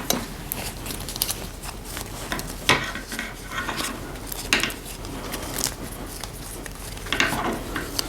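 Hands handling a plastic Barbie Made to Move doll and dressing it: light clicks, taps and soft rustling, with a few sharper clacks.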